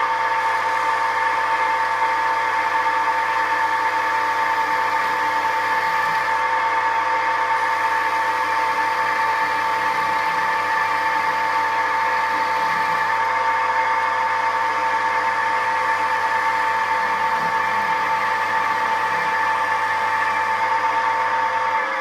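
Record CL1 three-speed wood lathe running steadily at speed, a steady motor whine with several fixed tones over a low hum, spinning a teak knob blank in its chuck.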